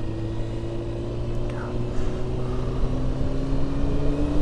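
Sport motorcycle engine running at a steady cruise, its note rising slowly as the bike gains a little speed, over a low rumble of wind and road noise.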